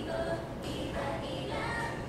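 Background music with a woman singing.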